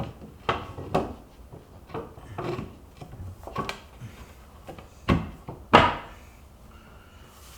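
A series of irregular knocks and clunks, like objects being handled and set down, with the two loudest hits near the end.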